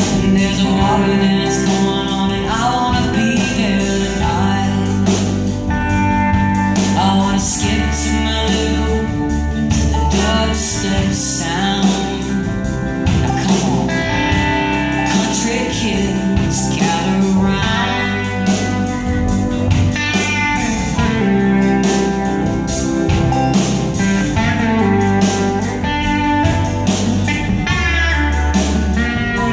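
Live folk-rock band playing: electric guitar, hollow-body electric guitar, banjo and drums over a steady beat, with a lead line sliding and bending in pitch.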